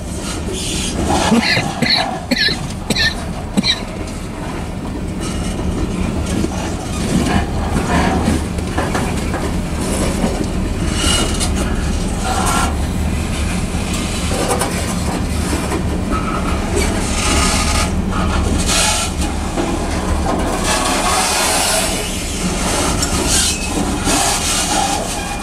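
Freight train of covered hopper cars rolling past with a steady low rumble and steel wheels clicking over the rail joints. About a second in there is a run of short high-pitched tones, roughly two a second.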